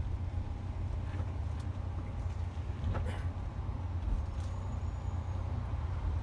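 Diesel engine and drivetrain of a Mercedes-Benz Travego coach heard from inside the cabin, a steady low rumble as the coach rolls slowly through a turn. A few light clicks come through, the clearest about three seconds in.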